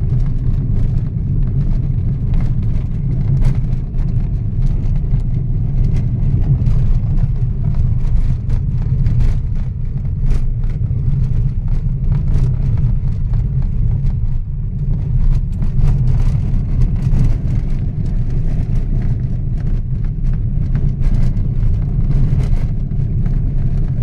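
Car driving along a rough dirt road, heard from inside the cabin: a steady low rumble of engine and tyres, with frequent small knocks and rattles from the uneven surface.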